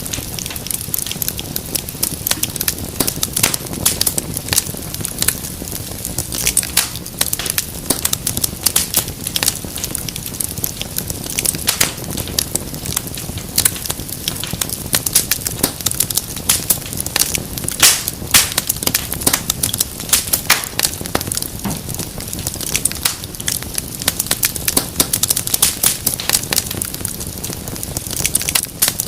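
Fireplace wood fire crackling steadily, with a dense, irregular run of sharp pops and snaps over a low rumble of flame.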